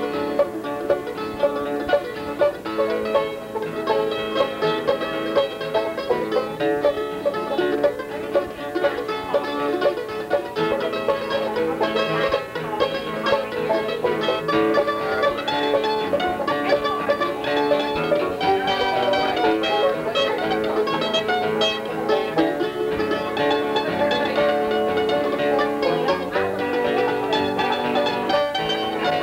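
Background music: a brisk bluegrass-style tune on plucked string instruments, with many quick notes.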